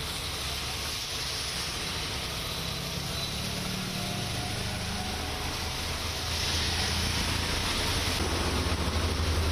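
Road traffic in the rain: vehicle engines run with a steady low hum over an even hiss of rain and tyres on the wet road, growing louder about six seconds in.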